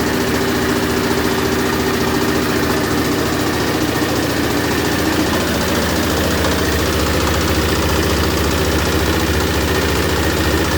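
Small diesel engine running a mini rice milling machine, a loud, steady machine drone. About halfway through, the higher hum fades and a deeper tone grows stronger.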